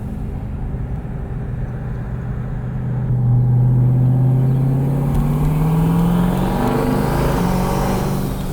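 Twin-turbocharged Jeep SRT's V8 engine pulling under acceleration: a steady engine note that gets louder about three seconds in and rises in pitch for several seconds before levelling off.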